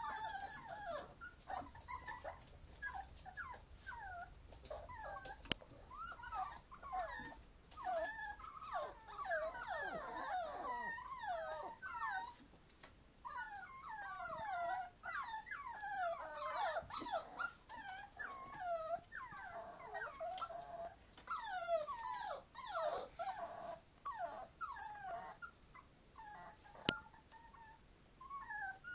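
Several bichon frisé puppies whining and whimpering together, a constant overlapping stream of short high cries that bend up and down in pitch. A single sharp click near the end.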